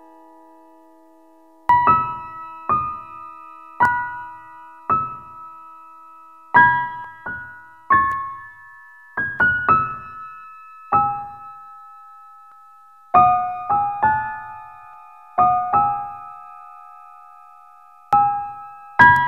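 Slow, sparse solo piano music. It opens on a chord dying away, then single notes and small chords are struck about a second apart, each left to ring and fade.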